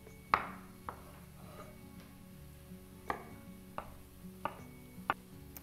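Chef's knife chopping peeled garlic cloves on a wooden cutting board: about six separate, unevenly spaced knife strikes, the loudest about half a second in.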